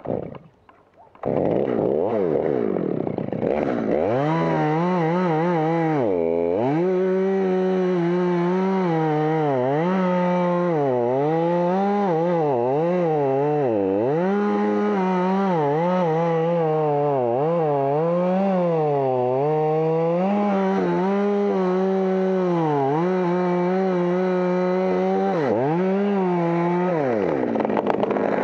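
Two-stroke chainsaw starting about a second in and cutting through a blue gum (eucalyptus) stem, its engine pitch dipping as the chain bogs in the wood and climbing again as it recovers, many times over. Near the end it settles to a lower, steady speed.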